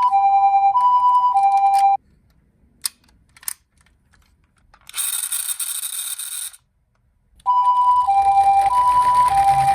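Japanese-style two-tone ambulance siren from a toy ambulance, alternating a higher and a lower tone about every two-thirds of a second. It stops after about two seconds; two light clicks follow, then a harsh hiss for about a second and a half. The siren starts again near the end, with a rattling noise under it.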